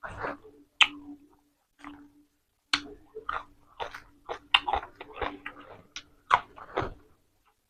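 Close-up chewing of a mouthful of fresh raw vegetables and pork salad: irregular crisp crunches, a few at first and then a quick run of them from about three seconds in.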